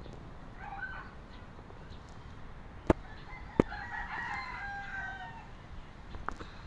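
A rooster crowing: a short call about a second in, then one long crow lasting over a second about four seconds in. Two sharp knocks, the loudest sounds, come shortly before the long crow.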